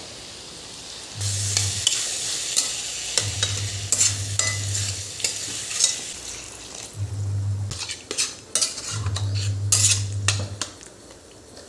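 Food frying and sizzling in a pan while it is stirred, with many sharp clicks of the spatula against the pan. A low hum cuts in and out several times.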